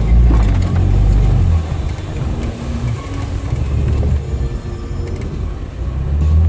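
Jeep's engine and drivetrain rumbling as it drives through mud, heard from inside the cab. The rumble is louder for the first second and a half, eases off, then picks up again near the end.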